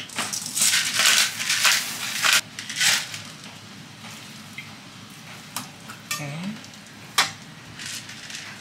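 Hand pepper mill grinding black pepper in a quick run of gritty strokes over the first three seconds, then a few scattered light clicks.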